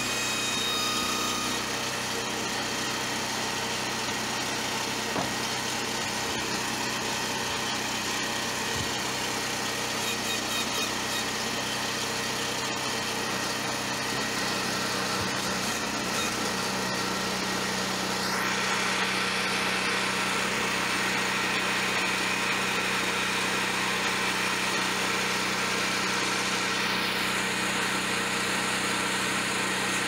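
Small engine of a homemade hydraulic backhoe running steadily, driving the hydraulics as the boom and bucket move. A little past halfway its note shifts and grows slightly louder.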